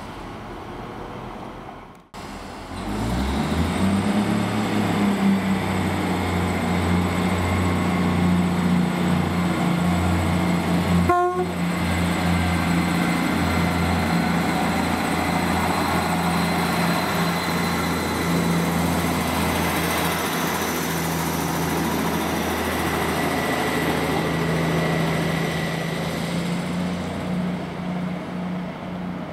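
A train's engine runs steadily close by with a low, even drone, starting just after a break about two seconds in. One brief sharp sound cuts across it about eleven seconds in.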